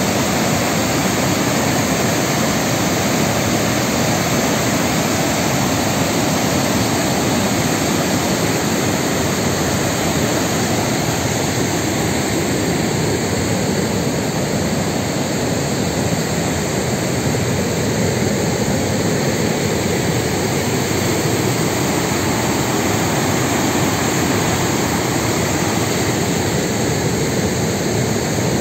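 Steady, loud rush of a waterfall pouring over rock ledges into churning white-water rapids.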